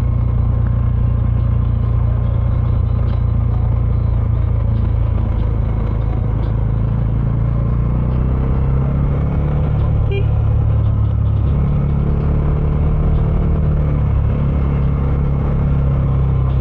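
Bajaj Dominar 400 UG2's 373 cc single-cylinder engine running through its stock exhaust while riding, a steady low drone. The engine speed shifts slightly about halfway through.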